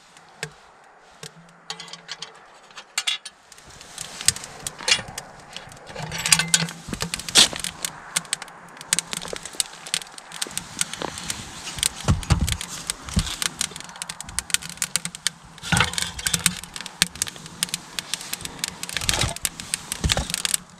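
Spruce kindling crackling and popping as it catches in a small steel wood stove, many sharp clicks from about four seconds in. Mixed with metallic rattles and a few heavier knocks as the stove door and wood are handled.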